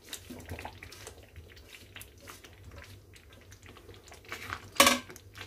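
Fried whole potatoes sliding off a steel plate and dropping into thick masala gravy in a kadhai, with soft wet plops. A sharper knock on the pan comes near the end.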